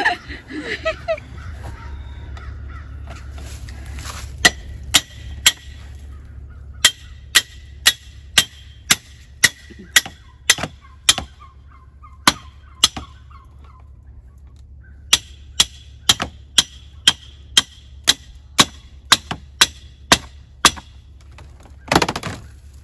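Hammer striking a steel fence stake, driving it into the ground: ringing metal blows at about two a second, in two runs with a pause between. A poultry call sounds at the start, and there is a brief rustling noise near the end.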